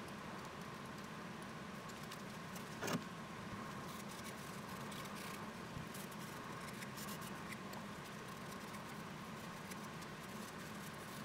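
Faint handling sounds of gloved hands moving and turning small plywood parts, light scratches and taps, with one sharper click about three seconds in, over a steady low hum.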